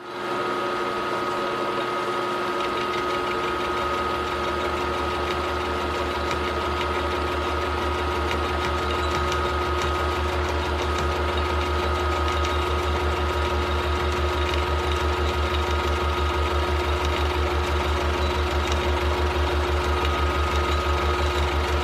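Milling machine running with a multi-flute end mill side-cutting a steel part at a 50-thousandths depth of cut on a slow feed. It is a steady machine whine with a low, even pulsing that sets in a few seconds in and grows stronger.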